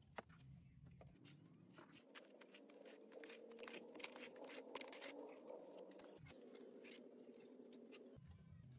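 Faint scraping and light clicking of a trowel working wet cement mortar.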